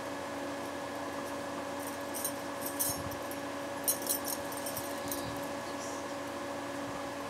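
Light clicks and clinks of small things being handled, clustered in the middle, over a steady electric hum.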